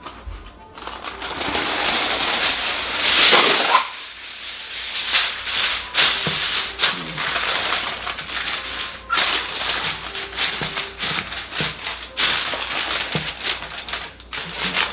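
Aluminium foil crinkling and crackling loudly as a sheet is handled and pressed down over a baking dish, in uneven bursts with a loud swell about three seconds in.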